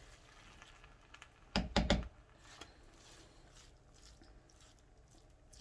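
A quick cluster of three or four sharp knocks, about a second and a half in, over faint room noise.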